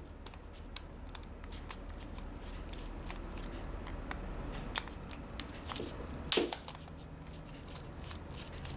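Screwdriver backing out the terminal screws of a double-pole circuit breaker: small irregular metallic clicks and ticks of the tip on the screws and the plastic breaker body being handled, with a couple of louder clicks past the middle.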